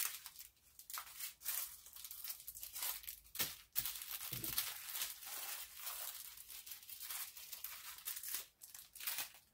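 Small plastic bags of diamond painting drills crinkling as they are handled and laid out on paper, in an irregular run of short crackles.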